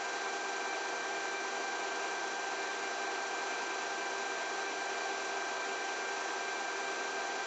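A steady, unchanging hiss with a faint high whine running through it.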